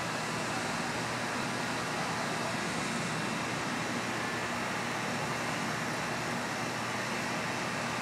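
Steady, even outdoor hiss with no distinct events.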